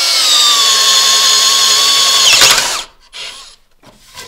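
Bosch Flexiclick 18-volt cordless drill in low gear, driving a self-feeding spade bit through a wooden board. The motor's whine sags slightly in pitch under load, swoops briefly just before it stops about three seconds in, and a short rustle follows.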